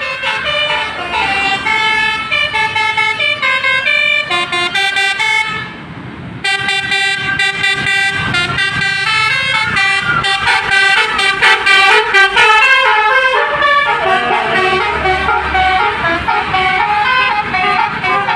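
Indonesian bus 'telolet basuri' musical air horn playing a fast tune of chord-like tones that step from pitch to pitch, with a brief break about six seconds in.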